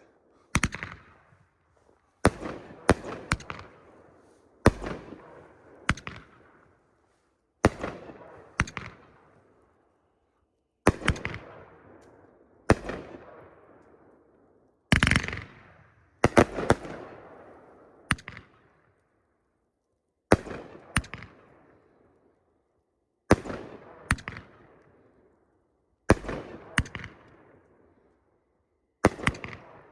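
Riakeo Max Load #2 firework cake firing shot after shot. A sharp bang comes every two to three seconds, often two or three in quick succession, each followed by a long echoing tail.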